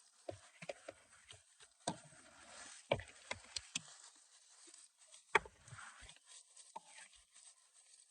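Scattered sharp clicks and light knocks of hands and tools fitting a new blower motor resistor into place, with no drill or motor running.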